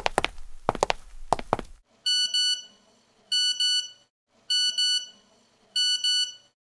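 A run of sharp thuds, in pairs about every half second, stops about two seconds in. Then an electronic alarm beeps in four short groups of quick high beeps, about a second apart.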